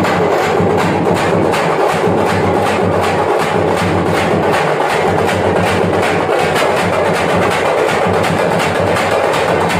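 A group of parai (thappattam) frame drums played together in a fast, even rhythm of dense, sharp strokes without a break.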